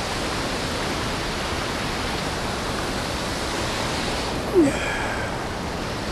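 Shallow creek water rushing steadily over rocks, with one brief, short sound about four and a half seconds in.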